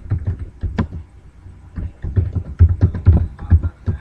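Typing on a computer keyboard: quick, irregular key clicks that get louder and heavier about halfway through.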